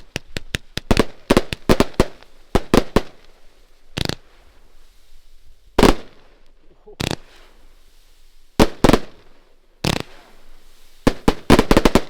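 Schmidt Feuerwerke Doomonic 113-shot 25/30 mm firework battery going off: a quick run of sharp bangs for the first three seconds, then single bangs a second or two apart, and a fast closing volley near the end.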